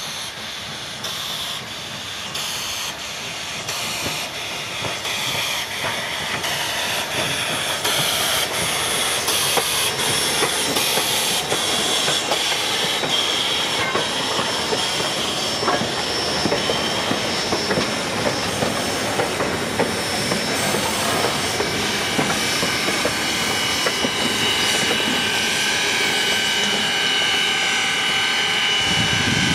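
Double-headed narrow-gauge steam train passing close by, including Queensland Rail AC16 class 2-8-2 locomotive 221A: rhythmic exhaust chuffs, about two a second, and hissing steam, growing louder as it comes by. Later the chuffs merge into a continuous hiss and rumble, and high steady ringing tones join in.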